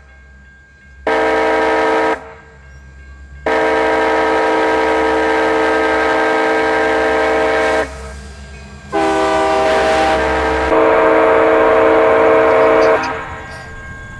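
Locomotive horn or whistle sounding a chord in a series of blasts: one short, then two long, the last changing pitch partway through. This is the kind of pattern blown for a grade crossing.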